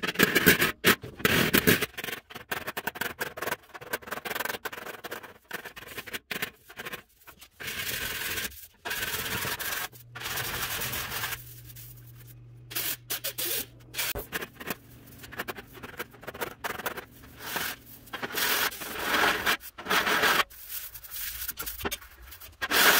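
MIG welder tack-welding a steel fender, crackling in short runs broken by abrupt cuts. Quieter stretches follow: a gloved hand rubbing over the welded metal and a steady low hum near the middle.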